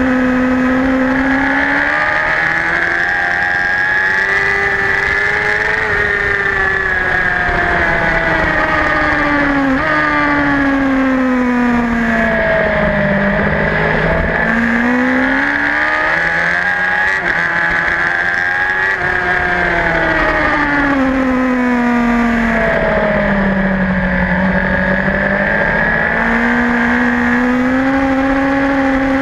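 Racing superbike engine at high revs, heard onboard. Its note drops twice as the bike slows for corners and climbs again as it accelerates out.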